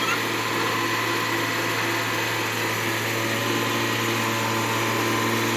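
A machine running steadily with a constant low hum and no change in pitch.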